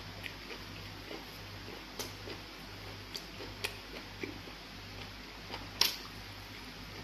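Close-up eating sounds of pounded fufu and egusi soup taken by hand: scattered wet clicks and smacks of chewing, with a louder smack near the end as a ball of fufu goes into the mouth, over a low steady hum.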